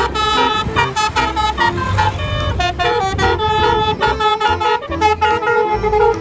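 Telolet musical bus horn playing a quick tune of stepped, changing notes, with a low pulsing beat underneath.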